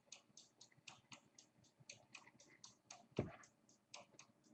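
Faint, quick clicks about four to five a second from baseball cards being flicked through by hand, with one soft thump a little after three seconds in.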